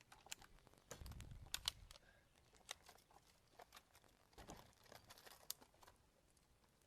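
Faint scattered clicks and rustling with a brief low rumble about a second in; no shot is fired.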